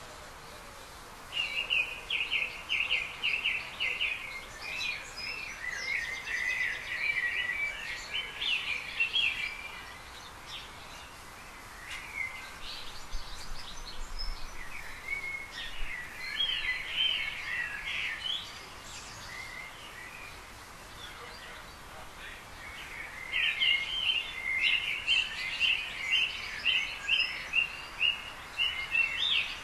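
Garden birds singing in fast chattering phrases several seconds long, with quieter pauses between, over a steady background hiss; the song is busiest near the start and again over the last few seconds.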